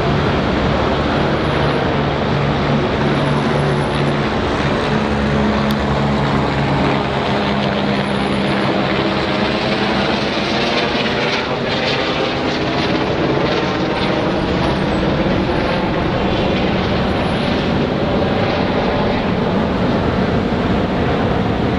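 Long freight train of loaded steel-coil wagons rolling across an elevated rail viaduct: a loud, steady rumble and clatter of wheels on rails, with a low steady hum in the first several seconds.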